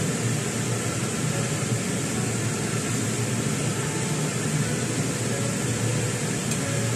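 Whole green peppers frying in shallow oil in a pan: a steady sizzle and bubbling hiss as their juices cook out.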